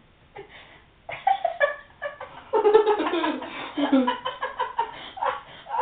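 People laughing and giggling hard, starting about a second in and carrying on with a few short pauses, mixed with some muffled talk.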